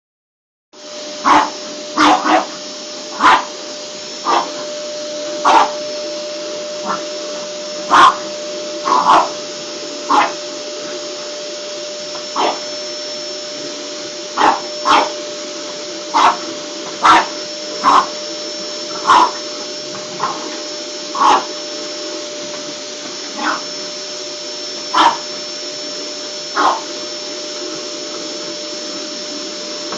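A vacuum cleaner switches on under a second in and runs steadily with a constant motor whine. Over it a French bulldog barks loudly at it about two dozen times, in short single barks and quick doubles roughly a second apart.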